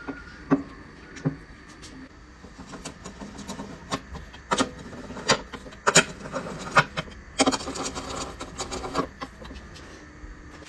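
Socket wrench on a long extension working bolts on an aluminium automatic transmission case: irregular sharp metallic clicks and knocks, with a quick run of clicks about halfway through.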